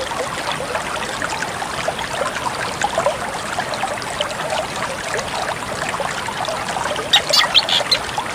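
Steady trickle of running water, with a short burst of drongo calls about seven seconds in.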